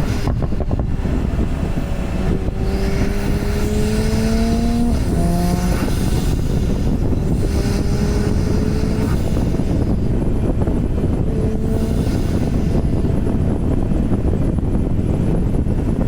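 Porsche 991 Turbo's twin-turbo flat-six accelerating, its engine note rising, then dropping in an upshift about five seconds in and climbing again before settling to a steadier cruise, over heavy road and wind noise.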